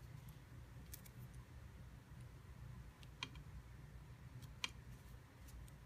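Faint small clicks as thread tails are snipped close with a seam ripper, two sharper ones about three and four and a half seconds in, over a low steady hum.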